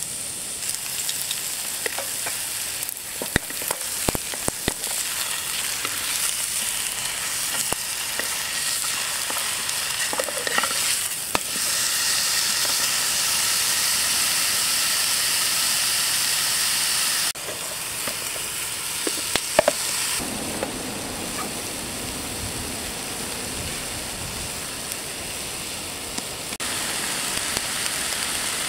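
Beef steak sizzling and frying in a hot frying pan on a rocket stove: a steady frying hiss with sharp crackles of spitting fat, clustered a few seconds in and again near the two-thirds mark. The level jumps abruptly a few times.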